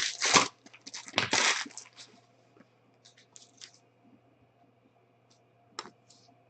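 Packaging being torn and crinkled as a trading-card box and its packs are opened, loudest in the first two seconds, then a few faint rustles and a single sharp click near the end.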